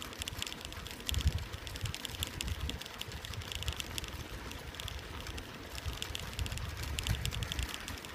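Bicycle rolling along a rough dirt-and-gravel field track: an uneven low rumble with quick, irregular clicking and rattling from the tyres and bike over the surface.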